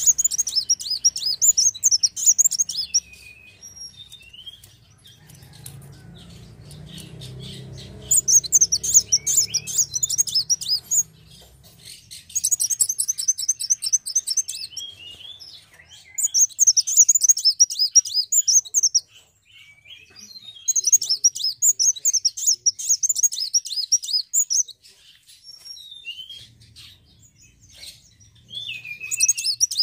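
Caged kolibri wulung sunbird singing: about six bursts of rapid, high-pitched twittering trills, each a second or three long, with short pauses between.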